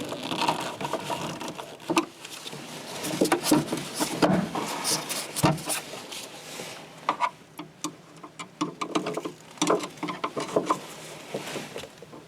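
Irregular clicks, light knocks and scraping as hands work on a car's trunk-lid gas strut mounting and the loosened plastic trim panel around it.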